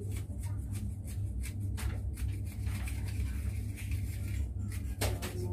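A steady low hum with scattered light clicks and knocks over it.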